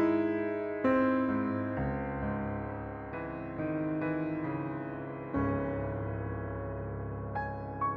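Background music: slow piano, chords struck every second or two and left to ring, with higher single notes near the end.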